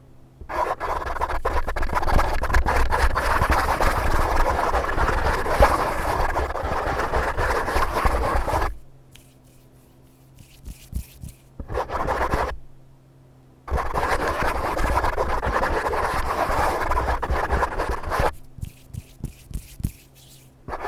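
Close-miked ASMR scratching in long dense runs: one from about half a second in to about 9 s, a short one around 12 s, and another from about 14 to 18 s, with scattered light clicks in the gaps.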